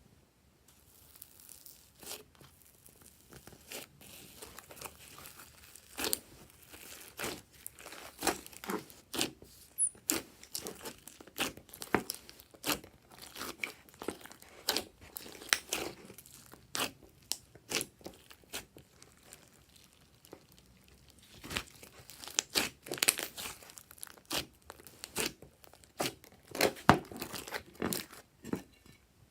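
Glossy slime being squished and worked by hand, giving irregular sticky pops and crackles, with a brief lull about two-thirds of the way through.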